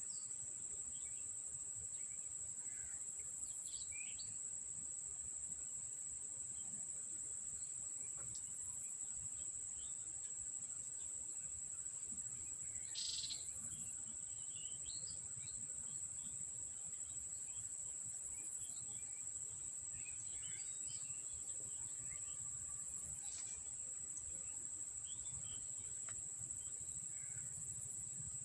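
Insects calling in one steady, high-pitched unbroken drone, with a few short bird chirps scattered over it.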